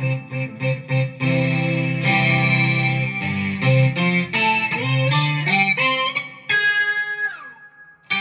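Electric guitar played through a BOSS SY-200 synthesizer pedal: a quick run of synth-toned notes, then a held note that slides down in pitch and fades near the end.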